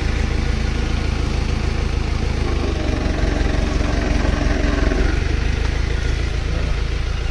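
A tractor engine running steadily with a low, even hum.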